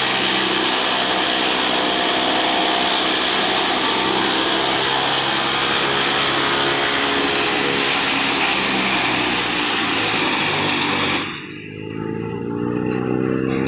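Tractor-driven wood chipper running hard and chipping wood, a loud, steady grinding hiss over the tractor's engine. About 11 seconds in the chipping noise cuts off abruptly, and the engine tone then rises in pitch.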